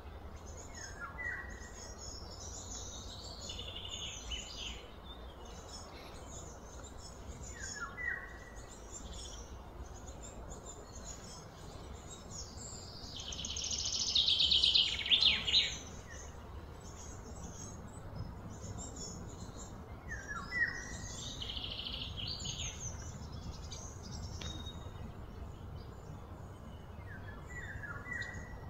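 Birds chirping and calling, with one short call that drops in pitch repeating four times and a louder run of rapid chirping about halfway through. A low steady rumble sits underneath.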